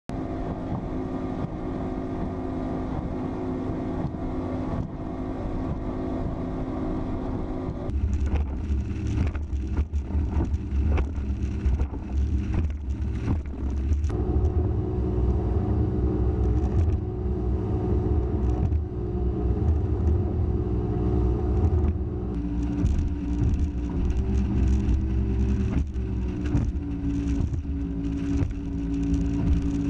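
A bass boat's outboard motor running steadily under way. About eight seconds in the sound grows louder, with a heavy low rumble and repeated thumps as the hull pounds through waves.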